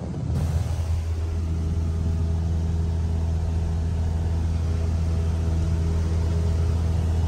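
Light aircraft's piston engine running at a steady speed, a constant low drone that settles in about half a second in.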